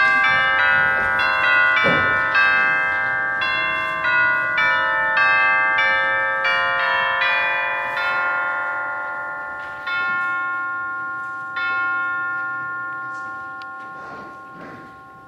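A melody in ringing, bell-like struck notes, about two a second and overlapping as each rings on. The notes thin out past the middle, and the last ones die away slowly.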